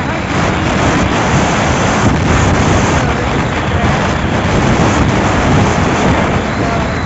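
Wind buffeting the microphone on a moving motorcycle, a loud, steady rushing noise with the bike's running noise mixed in.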